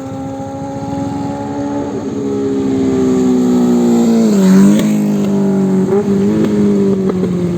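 Benelli TNT 600's inline-four engine at high revs on a flyby. Its steady tone grows louder and drops in pitch as the bike passes, about four and a half seconds in, then carries on at the lower pitch as it goes away.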